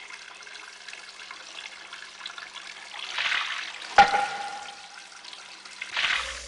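Water trickling from a bamboo spout into a bamboo shishi-odoshi (deer-scarer fountain), swelling twice, with one sharp, hollow knock about four seconds in that rings briefly.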